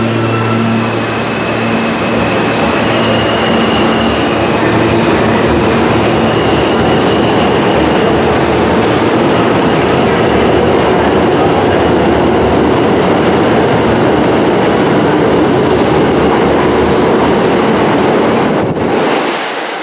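A New York City subway Q train pulling into an underground station and running along the platform: a loud, steady rumble of wheels and motors on the rails, with a thin high wheel squeal in the first few seconds. The sound drops away sharply near the end.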